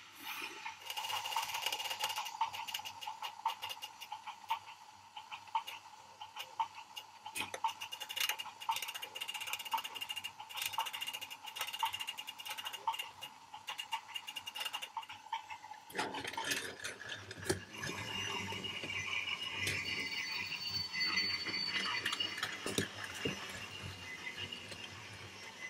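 Motorized toy trains running on plastic track: a steady small electric-motor whine with fast, dense clicking of the wheels over the track. The sound changes about two-thirds of the way through.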